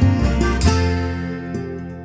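Instrumental intro music: a last few notes struck in the first second, then ringing out and fading away.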